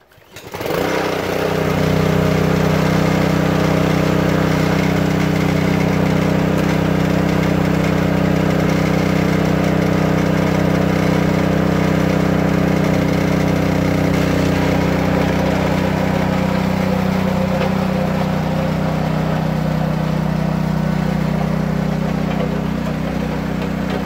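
Honda overhead-cam engine on a small homemade road roller pull-started cold without choke, catching almost at once and settling into a steady run.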